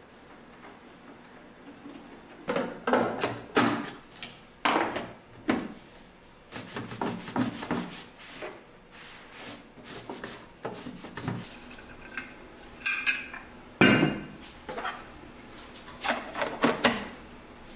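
Kitchen cleaning sounds: a cloth rubbing over a coffee machine, with a string of hard knocks and clatters as its parts are handled and set down. A brief fast rattle comes just before the sharpest knock, about fourteen seconds in.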